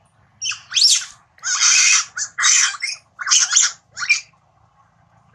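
A macaque giving a run of loud, harsh screeching calls, about six in quick succession over some four seconds, several sliding upward in pitch.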